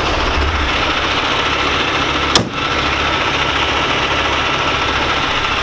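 Diesel semi truck engine idling steadily, with one sharp click about two and a half seconds in.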